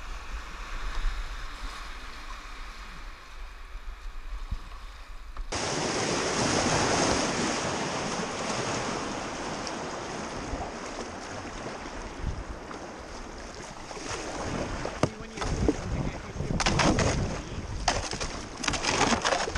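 Rushing water of river rapids around a kayak. It is quieter at first, with a low rumble of wind on the microphone, then jumps suddenly louder about five seconds in; paddle strokes splash repeatedly near the end.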